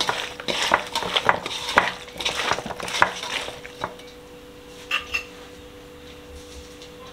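A spoon stirring and scraping in a bowl of chopped mutton offal and spices, with rapid clinks and scrapes that stop about four seconds in, then one ringing clink a second later.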